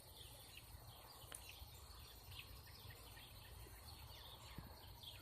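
Near silence with faint, distant bird chirps repeating a couple of times a second over a low steady rumble.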